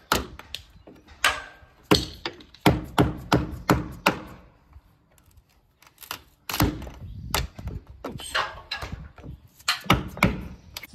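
A hammer driving a wood chisel into wood: a series of sharp blows, several a second, with a pause in the middle.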